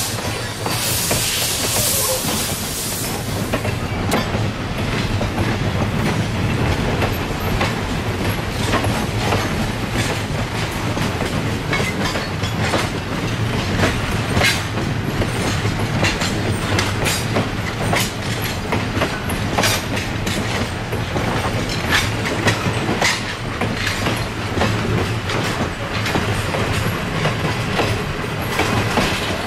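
Railroad passenger coaches rolling past with a steady rumble, their steel wheels clicking over rail joints. A hiss sounds for the first few seconds.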